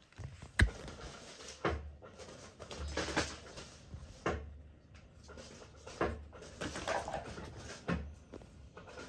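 Kittens jumping onto and scrambling over a person's lap: a series of soft thumps from landings and paws, with clothing rustling between them. A sharp knock about half a second in is the loudest.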